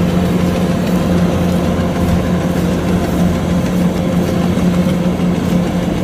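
Kubota DC-105X combine harvester's diesel engine running steadily, a constant drone with no change in speed.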